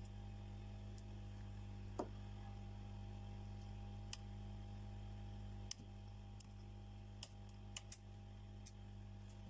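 Light, scattered clicks and taps of small tools and parts being handled on an iPhone 11 under repair, over a steady faint electrical hum. There are about eight clicks, a couple of them in quick succession near the end.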